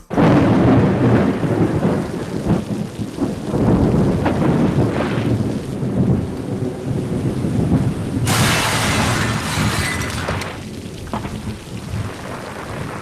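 Thunderstorm sound effect: rumbling thunder and heavy rain that start suddenly, with a loud hissing surge about eight seconds in.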